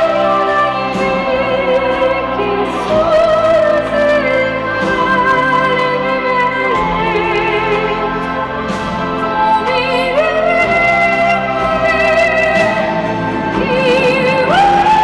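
A woman singing a classical-crossover ballad in an operatic style over instrumental backing, holding long notes with vibrato; her voice climbs about ten seconds in and again near the end to a high sustained note.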